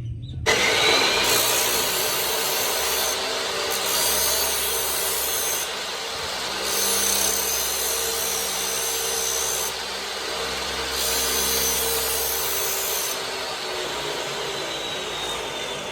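Motor-driven abrasive tool spinning up about half a second in, then rasping steadily as metal or wood is worked against it, the hiss swelling in four long passes.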